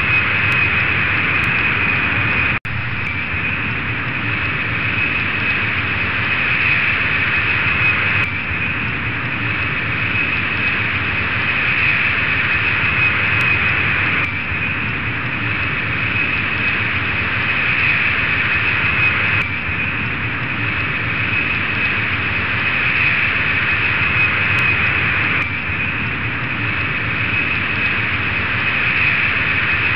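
Jet airliner engine noise: a steady rushing hiss with a high whine held on one pitch, shifting slightly every five or six seconds like a repeating loop, with a brief break about two and a half seconds in.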